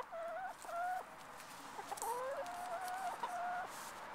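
Domestic hen making a run of about five drawn-out, level-pitched calls, one of them rising.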